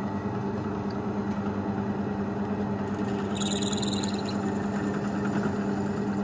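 Drill press motor running with a steady hum as a twist drill bit bores into a small knurled windshield-wiper part clamped in a vice. About three seconds in, a high-pitched whine rises over the hum for about a second as the bit cuts.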